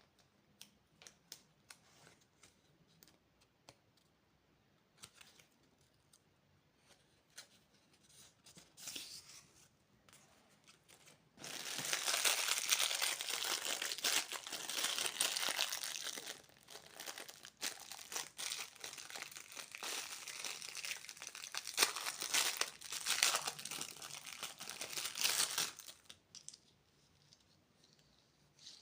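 Candy wrappers being handled and torn open. About ten seconds of scattered light clicks and taps give way to a long stretch of loud crinkling and tearing, which dies away near the end.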